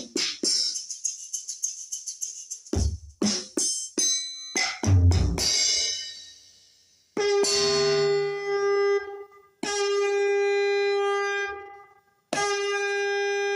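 Roland SPD-20X electronic percussion pad playing its sounds, heard working after a repair for no sound. First comes a fast run of sharp hits, then a few single drum hits with a deep kick. From about seven seconds in there are three long, steady, horn-like notes, each about two seconds.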